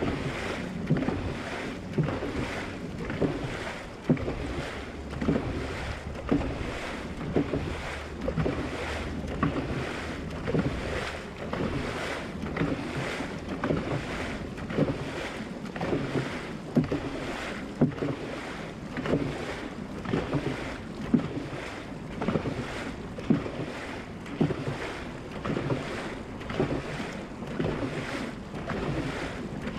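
Dragon boat paddles striking and pulling through the water in a steady rhythm, about one stroke a second, over the constant rush of the hull's wake and some wind on the microphone.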